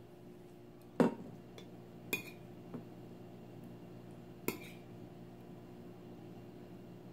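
A stainless steel bowl knocks down on a wooden table about a second in, then a fork clinks against a ceramic plate a few times while mixing raw fish and onion, over a steady low hum.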